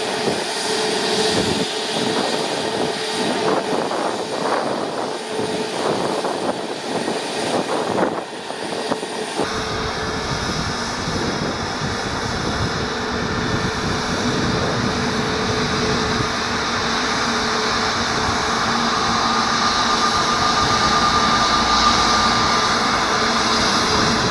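Airbus A320neo's jet engines running at low power as the airliner taxis and turns on the runway: a steady rush of air with a held whine. About ten seconds in the sound changes abruptly to a fuller, lower rumble, and a higher steady whine comes in near the end.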